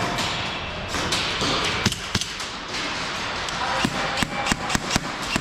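Airsoft guns firing: scattered sharp cracks and pops, coming faster, several a second, near the end.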